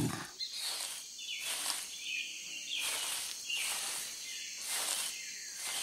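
Jungle ambience: insects buzzing in even pulses about every two-thirds of a second, with short bird chirps between them.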